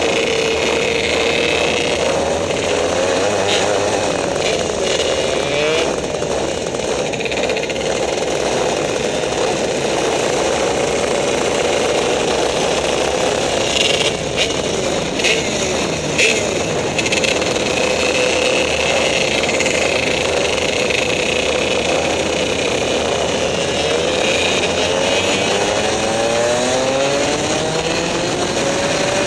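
Rotax two-stroke kart engine heard onboard while racing, its pitch dipping into corners and rising again as it accelerates out, with several rising sweeps near the end. A few sharp knocks about halfway through.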